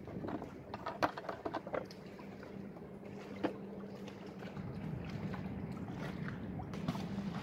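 Fishing tackle and a plastic bait bucket with a wire handle being handled: a quick run of light clicks and knocks in the first two seconds and one more a little later. Under them runs a steady low hum that grows a little louder from about halfway.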